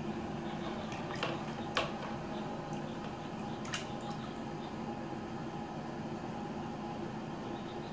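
Bathwater sloshing and lightly splashing in a plastic basin as a small child moves a plastic dipper through it, with a few short sharp splashes or knocks at about one, two and four seconds in. A steady low hum runs underneath.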